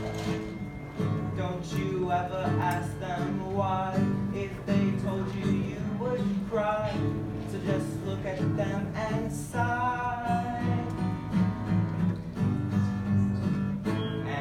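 A song with strummed acoustic guitar and a voice singing over it.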